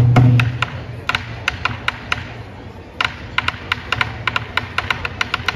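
A deep drum beat at the very start, then a run of sharp, irregular wooden clicks and taps, several a second, for the rest of the time.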